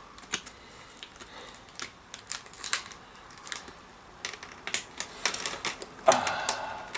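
Irregular small plastic clicks and snaps as a laptop's plastic screen bezel is pried off its clips, with a louder, longer creak about six seconds in.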